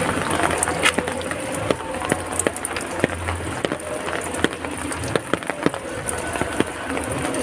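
Heavy rain falling: a steady hiss with many sharp, irregular drops and drips striking hard surfaces.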